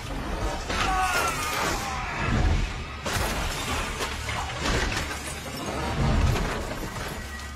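Loud crashes with glass shattering, several over a few seconds, and a short falling squeal about a second in.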